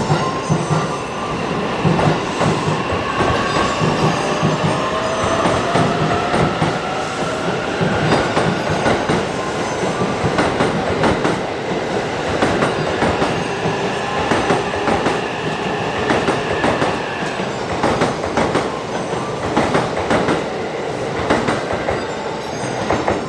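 Limited express electric train moving on the tracks, with a whine that rises in pitch over the first ten seconds or so, over the rumble and repeated clicks of wheels on rail.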